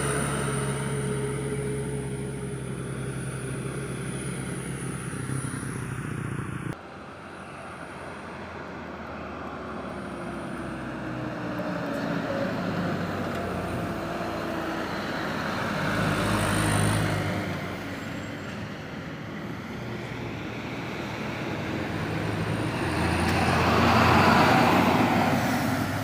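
Heavy road vehicles, buses and loaded trucks, driving past on a road. A steady engine is heard first and cuts off abruptly about seven seconds in. Then vehicles pass one after another, swelling and fading, and the loudest passes near the end.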